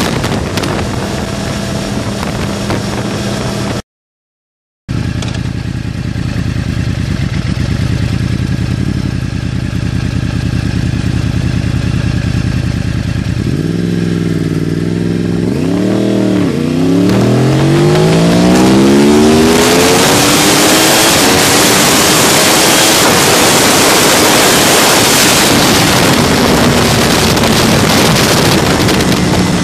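A 2013 Yamaha R1's crossplane inline-four engine, heard from the rider's seat. It runs steadily at cruising speed, then revs up hard at about 13 seconds in with a couple of quick rises and falls in pitch and a long climbing note. Loud wind rush swamps it as the speed builds. The sound drops out completely for about a second near the 4-second mark.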